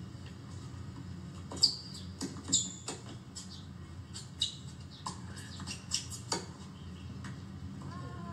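Tennis rally on a hard court: a string of sharp pops from rackets striking the ball and the ball bouncing, the loudest about a second and a half in, with short high squeaks of tennis shoes on the court.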